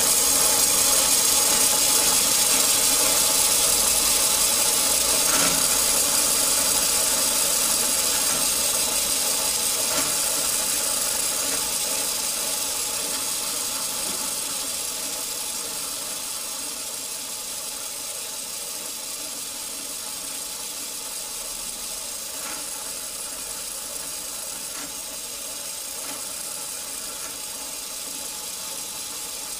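LEGO Technic manual gearbox with two forward speeds and reverse, run by a LEGO Power Functions electric motor: a steady whir of the motor and plastic gears meshing, with a few faint clicks as the shift lever moves the gears. It gets gradually quieter over the first half, then runs on evenly.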